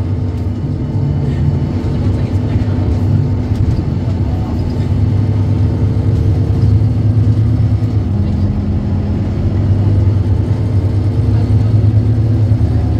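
Scania K230UB city bus's nine-litre five-cylinder diesel running as the bus drives, its engine note shifting up and down in pitch a few times.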